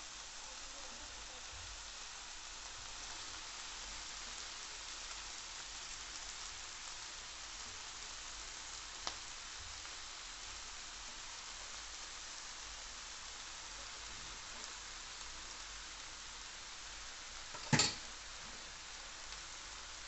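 Vegetables and sauce sizzling steadily in a nonstick frying pan over a high gas flame, with a single sharp knock near the end.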